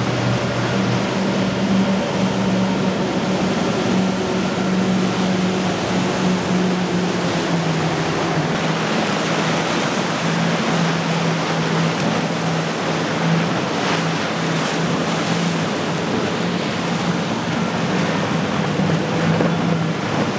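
Outboard motors on passing center-console boats running at speed, a steady drone over the rush of hulls and spray through choppy waves, with wind on the microphone. The engine note drops slightly about a third of the way in, where the boat in view is one with quad Mercury 350 hp outboards.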